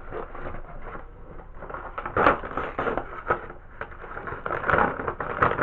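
Plastic packaging of pig's ear pet treats crinkling and crackling as it is handled, in irregular rustles with sharper crackles about two seconds in and again near the end.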